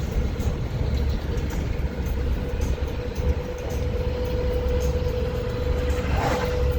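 Sentry 10V outdoor warning siren sounding its steady alert tone, heard from a moving car over road and engine rumble. The tone holds one pitch and grows louder near the end.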